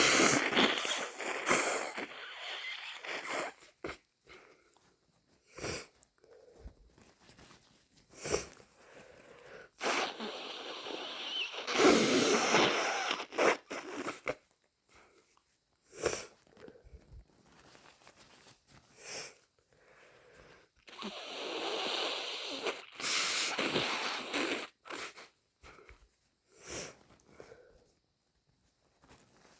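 A person with a heavy, congested head cold sneezing and blowing a snotty nose into a tissue, with short sniffs between. Three loud stretches come right at the start, about ten seconds in and about twenty-one seconds in.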